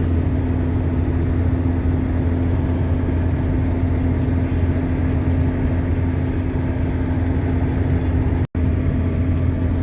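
Steady engine and road drone inside the cab of a GAZelle van cruising on the highway, with a constant low hum. The sound cuts out for an instant about eight and a half seconds in.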